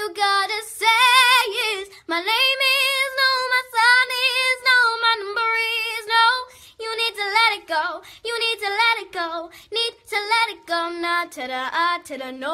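A young girl singing solo with no accompaniment, in short phrases with a wavering vibrato on the held notes.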